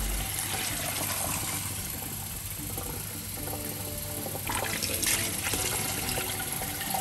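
Kitchen tap running, its stream splashing into a plastic cup held beneath it and overflowing into a stainless steel sink. The water is being run through a newly installed housing water filter to flush it.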